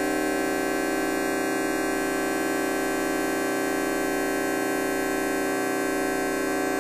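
A fart sound effect time-stretched to an extreme length, heard as a steady drone of many held tones that does not change.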